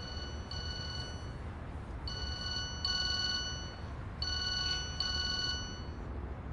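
Mobile phone ringing: a high electronic ringtone in pairs of short bursts, the pair repeating about every two seconds.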